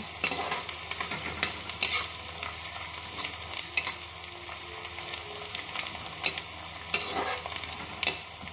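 Chopped onions and green chilies sizzling in hot mustard oil in a kadhai, stirred with a metal ladle that scrapes and taps against the pan at irregular moments.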